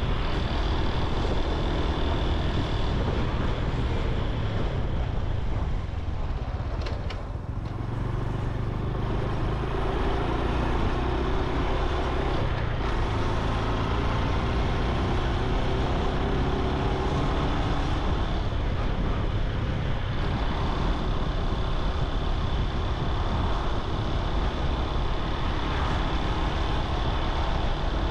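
Honda Super Cub C125's single-cylinder engine and exhaust running steadily while riding on the road. The engine eases off about six seconds in, then picks up again.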